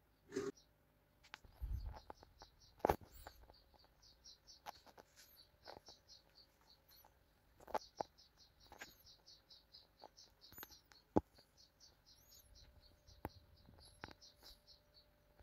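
Scattered clicks and light knocks from the aluminium-extrusion frame of a CNC machine being handled, with a low thud about two seconds in. Behind them, a rapid high-pitched chirping, several chirps a second, starts a couple of seconds in and keeps going.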